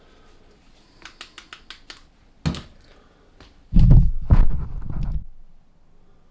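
Workshop handling noise from metal parts being moved on a bench: a quick run of light clicks, a sharp knock, then a loud, heavy clunking and rumbling for about a second and a half.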